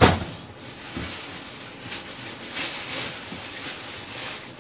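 A sharp knock at the start, then a steady hiss with soft rustling and a few light clatters of food and containers being handled in a kitchen.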